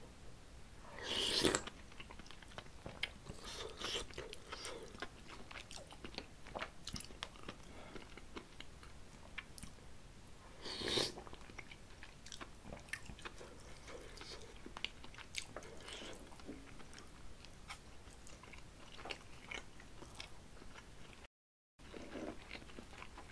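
Close-miked chewing and mouth sounds of a man eating stir-fried pork, with many small wet clicks and two louder, longer bites, one about a second in and one near the middle.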